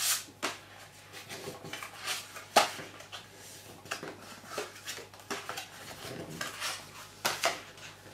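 Scored card being folded into a concertina by hand: irregular crisp crackles and clicks as the creases are bent, with one sharper click about two and a half seconds in.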